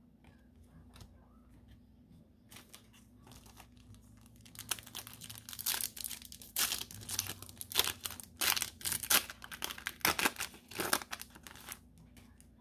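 A Pokémon 151 booster pack's wrapper being torn open and crinkled by hand: faint rustles at first, then from about four seconds in a run of loud sharp crackles and rips that stops shortly before the end.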